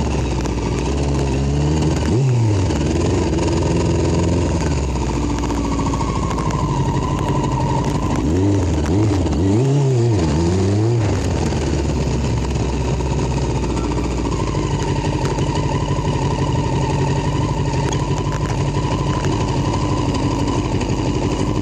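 Small motorbike engine running on the move, revved up and down a few times near the start and again around the middle, then idling steadily for the last several seconds.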